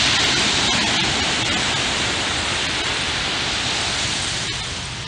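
Ocean surf washing onto a sandy beach: a steady rushing noise that eases off a little toward the end.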